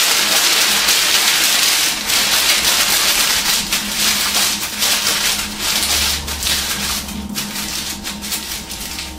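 A sheet of newspaper being crushed into a tight ball in one hand: dense, loud crackling and crinkling at first, thinning into sparser, quieter crinkles as the ball gets smaller.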